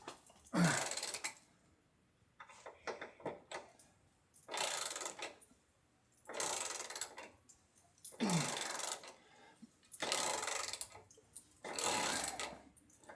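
Hand ratchet wrench clicking in about seven short strokes, one every couple of seconds, as a tight bolt held with Loctite is slowly backed out.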